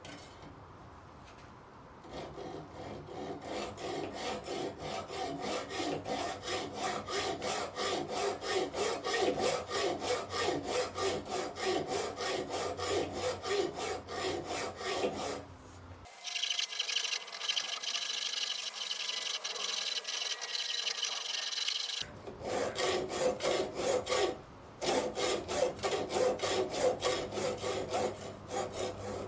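Hand hacksaw cutting through a cast metal runner with steady back-and-forth strokes, the blade rasping on the metal. The sawing starts about two seconds in and pauses briefly a few times.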